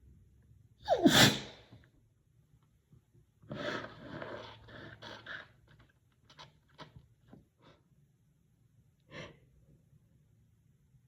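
A woman's loud, induced sneeze about a second in, its voiced burst falling sharply in pitch. It is followed by about two seconds of noisy nose-blowing and a few short sniffs, with one more short sniff near the end.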